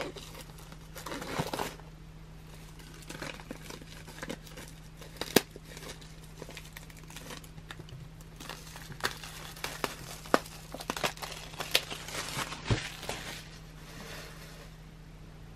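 Clear plastic shrink wrap crinkling and tearing as it is peeled off a CD album by hand, in bursts, with scattered sharp clicks from handling the album case.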